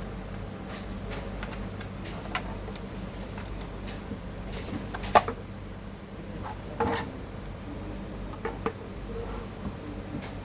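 Hands working on a small desktop computer: scattered clicks and knocks of hard parts being handled, the sharpest about five seconds in. A steady low hum runs underneath.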